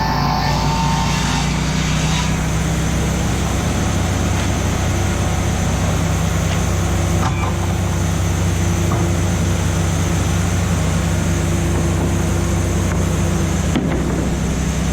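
Sawmill machinery running steadily with a loud, even, engine-like drone.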